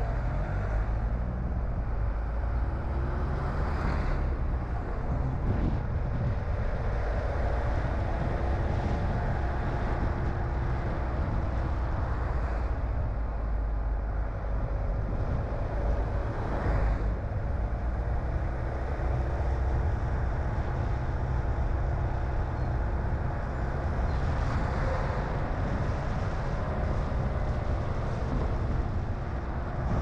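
Car driving along a road, heard from inside: a steady low rumble of engine and tyres, with a faint engine note that drifts up and down with speed and a few brief swells of road noise.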